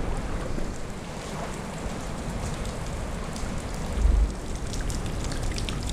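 Steady hiss of ocean water washing over the sand and rocks, with wind on the microphone; a short low wind buffet about four seconds in.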